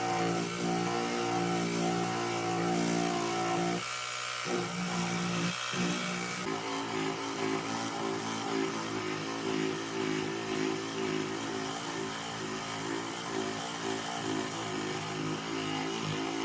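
A small handheld electric power tool running with a steady motor whine, dropping out briefly about four seconds in and again just before six seconds, then running on with a more uneven pitch.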